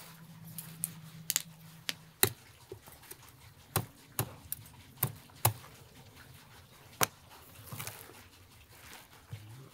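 A large knife cutting and snapping through a sturgeon's fins and cartilage: a run of about a dozen sharp clicks and cracks spread over several seconds, the loudest about two seconds in.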